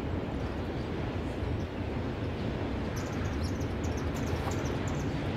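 A train rolling past, a steady low rumble of its wagons, with light high clicks coming in from about halfway through.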